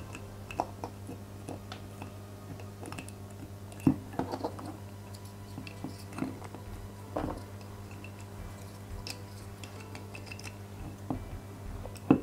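Scattered small clicks and taps of plastic and metal scale-model engine parts being handled, as a plastic carburettor is worked into its seat on the engine, over a steady low hum.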